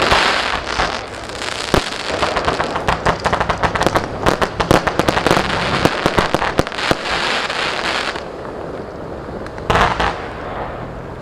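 Consumer aerial finale-set fireworks cakes (a 4-piece, 112-shot set) firing rapid volleys of shots and bursts in quick succession for about eight seconds. The firing thins out, then one more short cluster of bursts comes near the end.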